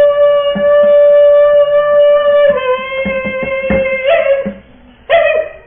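A high female voice sings one long held note, steps slightly lower about two and a half seconds in and holds again, then sings two short notes near the end.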